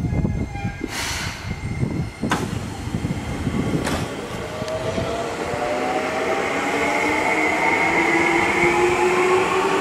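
Seibu 20000-series electric train pulling away, its inverter and traction motors whining in several tones that rise steadily in pitch as it picks up speed, over running rumble. Three sharp knocks come in the first four seconds.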